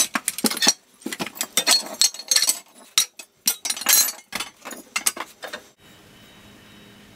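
Old metal wheels, pulleys and flywheels clanking and clinking against one another as they are shifted about in a pile, a quick run of knocks that stops about six seconds in.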